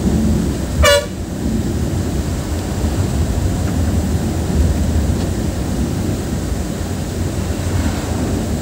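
A vehicle horn gives one short toot about a second in, over the steady low rumble of the moving bus's engine and road noise.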